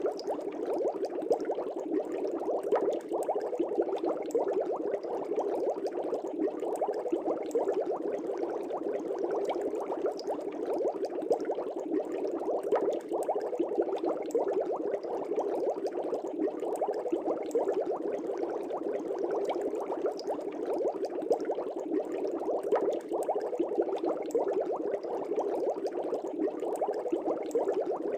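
Air bubbles streaming steadily through fish tank water: a dense, unbroken bubbling made of many small pops and gurgles.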